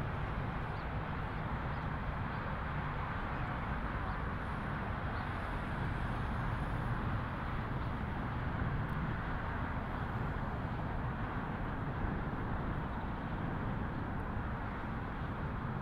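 Steady outdoor ambience: a continuous low rumble and hiss with no distinct events.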